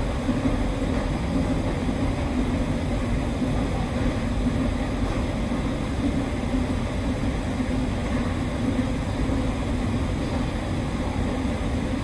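Stockholm metro train running: a steady low rumble with a humming note that holds even throughout.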